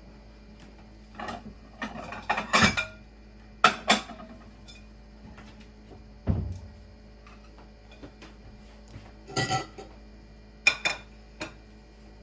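Dishes and cutlery clinking and clattering in irregular bursts, with a dull thump about six seconds in.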